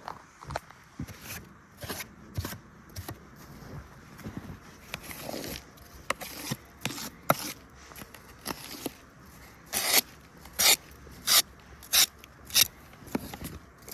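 Snow being scraped off the lids of beehives: irregular scrapes, then a run of five louder strokes about two-thirds of a second apart near the end.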